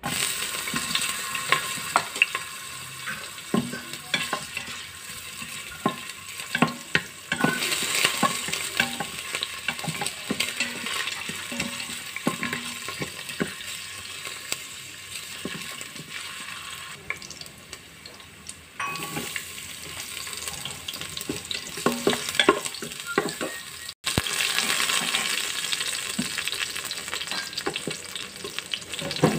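Sliced ginger and then onion sizzling in hot oil in the stainless steel inner pot of an electric pressure cooker. A wooden spatula scrapes and knocks against the pot as it stirs. The sizzle starts suddenly and gets louder again about seven seconds in and twice more, around nineteen and twenty-four seconds in.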